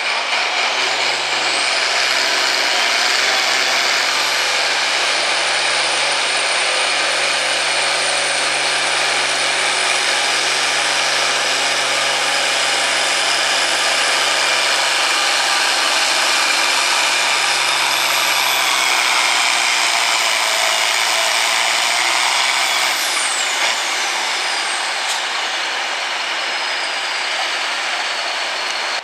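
International Harvester turbocharged diesel farm tractor at full throttle, pulling a weight-transfer sled, with a high turbo whistle that climbs twice. About 23 seconds in the throttle comes off: the whistle glides down as the turbo spools down, and the engine drops to a lower, quieter run.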